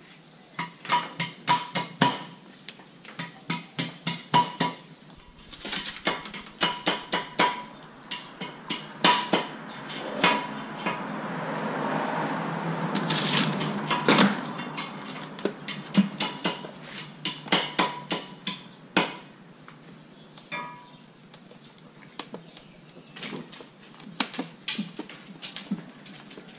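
Irregular series of sharp metallic knocks and clatter, many strikes ringing briefly, like metal utensils and a metal tray being knocked about. A rushing noise builds through the middle and peaks shortly before the clatter goes on.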